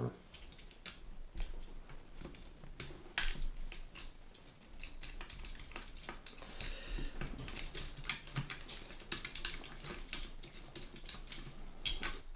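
Irregular light clicks, taps and small scrapes of metal parts being handled: a canted rail mount carrying a red dot sight being loosened with a hex key and worked off the top rail of a paintball marker.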